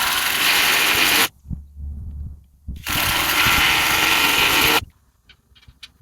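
A power tool running in two bursts of about two seconds each, with a steady low hum between them and a few light clicks near the end.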